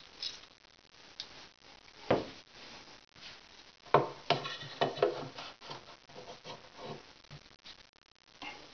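A metal drawer slide rail being handled and set against a wooden cabinet panel: scattered knocks and scrapes, with a short metallic clatter about four seconds in, the loudest part.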